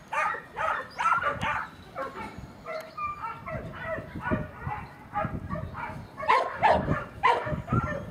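A dog barking repeatedly in quick runs of short barks, loudest near the end.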